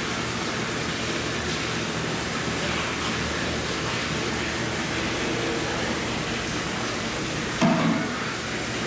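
Steady rushing hiss of aerated, bubbling water in a holding tank. About a second before the end, a louder sudden sound with a few low pitched tones breaks in over it.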